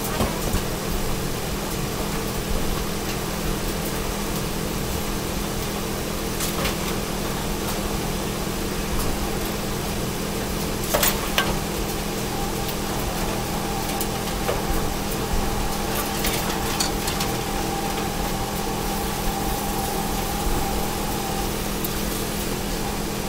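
Eggs being stirred in a cast iron skillet with a silicone spatula, which scrapes and taps the pan a few times, over a steady hum.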